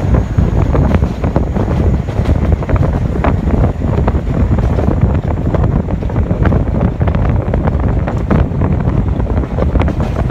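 NYC subway train running steadily at speed, heard from inside the moving car: a loud steady rumble of wheels on rail with rushing wind noise and many short sharp clicks and clacks.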